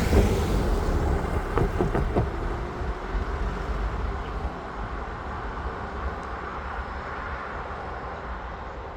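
Freight train rolling by and fading away as it moves off, with a few sharp clicks about two seconds in.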